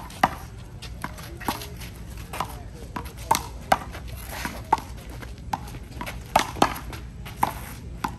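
Handball rally: a rubber ball slapped by players' hands and smacking off the wall and court, a quick irregular run of sharp slaps about every half second.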